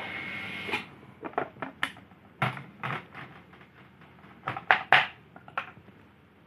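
Handling noise: a brief rustle, then scattered clicks and knocks of hard objects being moved and set down.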